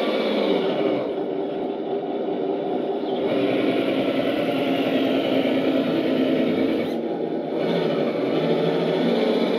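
Traxxas TRX-4 Ford F-150 1:10 RC crawler's electric motor and geartrain whining as the truck drives, easing off briefly about a second in and again around seven seconds as the throttle changes.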